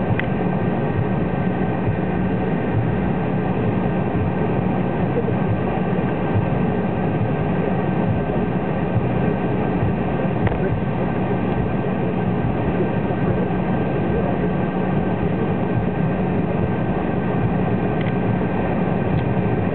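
Cabin noise of an Embraer 190 jet taxiing, its two General Electric CF34 turbofan engines running at low taxi power: a steady rush of sound with a low hum and faint higher whining tones.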